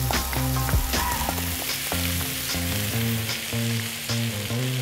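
Fresh baby spinach sizzling in hot olive oil and clarified butter in a frying pan as it is stirred with a wooden spoon.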